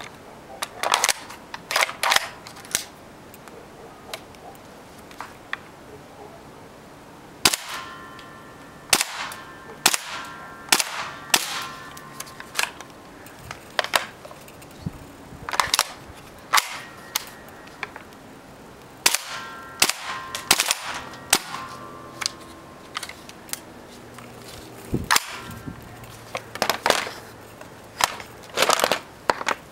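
Gas blowback airsoft gun firing single sharp shots, spaced irregularly and sometimes in quick pairs, a few followed by a brief ringing tone.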